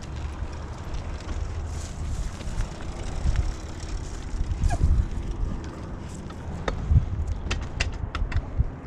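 Dirt bike ridden slowly over rocky ground: a low engine rumble, with a string of sharp clicks and knocks near the end as the bike bounces over rocks.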